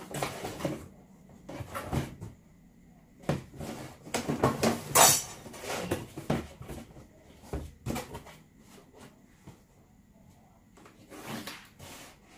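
Corrugated cardboard box flaps being handled, bent and creased by hand: an irregular run of scrapes, rustles and dull knocks, loudest about five seconds in and sparser towards the end.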